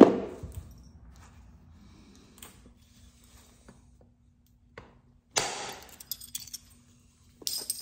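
Flint knapping: a heat-treated Flint River chert blade worked by hand, with a few faint clicks, then a scratchy burst of stone scraping and clinking about five and a half seconds in, and another short one near the end.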